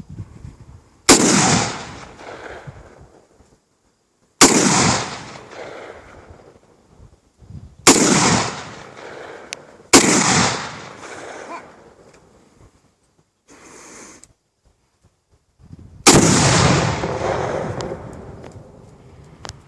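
Five loud M1 Garand rifle shots, .30-06, fired singly at uneven intervals, each followed by an echo dying away over a second or two; the last shot has the longest, heaviest tail.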